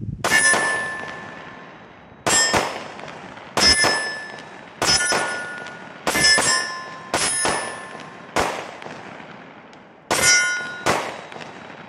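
Glock 20 10mm pistol fired about nine times, a shot every one to two seconds. Most shots are followed by the clang of a steel plate target being hit, ringing briefly.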